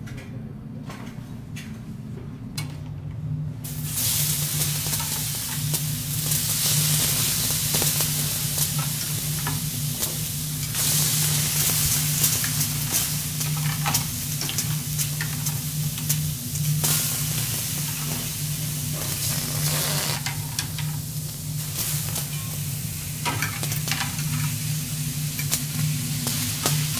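Lobster sizzling on a teppanyaki iron griddle, with the clicks and scrapes of the chef's spatulas on the steel. The sizzle comes up loud about four seconds in, over a steady low hum.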